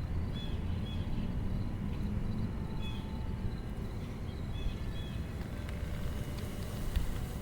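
Outdoor ambience: a steady low rumble with faint, short high chirps every second or two.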